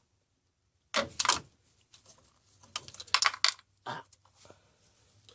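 Metallic clinks and clicks of hand tools and a spark plug being handled, as a plug is taken out for inspection. They come in short clusters about a second in, around three seconds and near four seconds.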